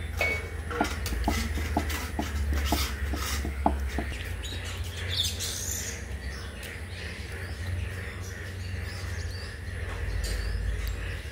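Birds calling in the background: short repeated chirps or clucks, about three a second for the first few seconds, then scattered. A steady low rumble runs underneath.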